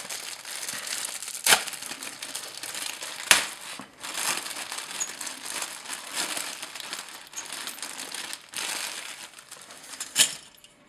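Thin plastic parts bag crinkling and rustling as it is handled and opened to get the kit parts out, with a few sharp clicks among the crackle.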